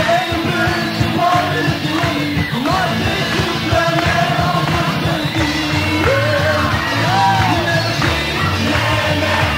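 Rock band playing live: a sung lead vocal over electric guitars, bass guitar and drums.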